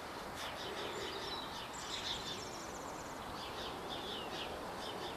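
Small birds chirping and calling in short, scattered notes, with a quick high trill about two seconds in, over a steady outdoor background hiss.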